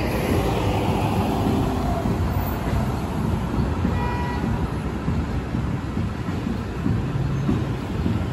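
City transit bus engine running as the bus pulls away, over a steady rumble of street traffic. A brief high tone sounds about four seconds in.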